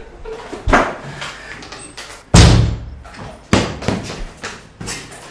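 A series of sharp knocks and thuds, with one much heavier slam about two seconds in.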